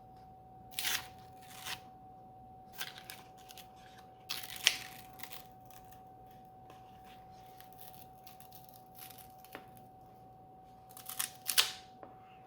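Paper rustling in scattered bursts as pages of a hardcover book are handled and turned, loudest about halfway through and again near the end, over a faint steady tone.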